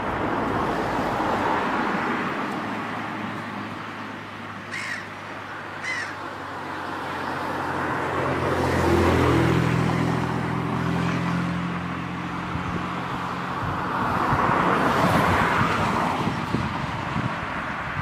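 Passing road traffic: a vehicle's engine drone swells and fades through the middle, under a steady rush of tyre and wind noise. Two short, sharp bird calls come about five and six seconds in.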